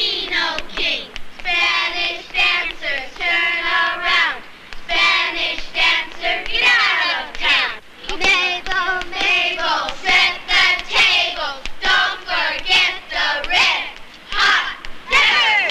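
Several children singing together, a high sing-song melody in short phrases with brief pauses between them.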